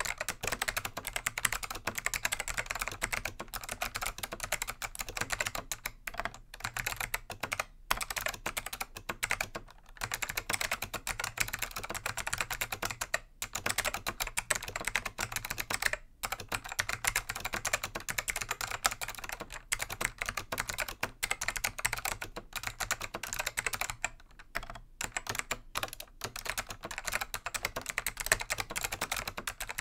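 Continuous typing on a Dell AT101 keyboard with Alps SKCM Black switches, click-modded by removing the retaining tabs of the tactile leaves. It makes a dense run of sharp key clicks, broken by a few brief pauses.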